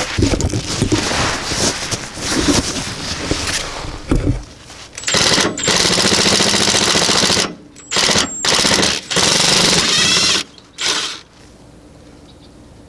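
Cordless impact wrench hammering in a fast rattle, spinning out the long-threaded Torx T50 bolts that hold a rear wheel hub. It runs steadily at first, then in several short bursts, and stops about eleven seconds in.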